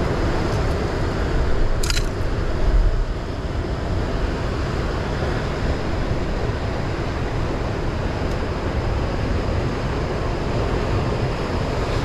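Steady rushing noise of sea surf and wind buffeting the microphone, with one short sharp click about two seconds in.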